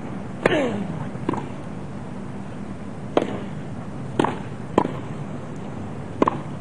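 Tennis ball struck by racquets in a serve and rally: six sharp hits, unevenly spaced, the first being the serve, over a low steady crowd hum.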